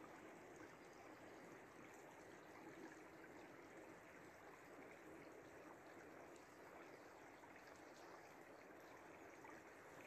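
Faint, steady rush of a small river flowing past snow-covered stones.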